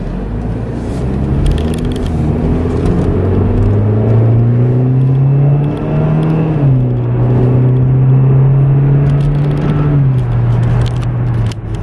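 Car engine heard from inside the cabin as the car accelerates: its pitch climbs for about six seconds, drops at a gear change, holds steady, then drops again near the end.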